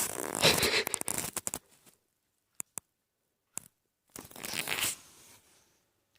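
Rough scratching and rustling noise, like claws or material being torn or rubbed, in two spells with a few sharp clicks between them.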